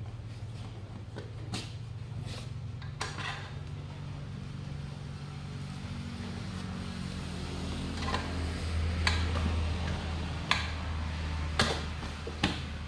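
Workshop sounds: a steady low machine hum with about eight scattered sharp metallic clinks and knocks, the loudest coming in the last few seconds.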